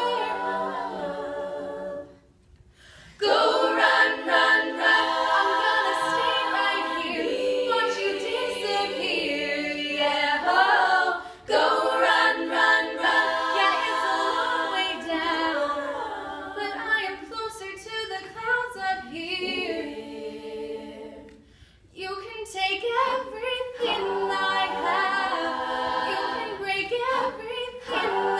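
Female a cappella group singing: a lead soloist at the microphone over the group's backing voices, with no instruments. The singing breaks off briefly twice, about two seconds in and again about three-quarters of the way through.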